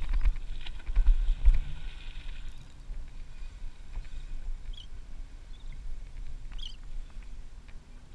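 Sea water lapping and slapping against the plastic hull of a Wilderness Systems fishing kayak, with a few heavier low thumps in the first two seconds.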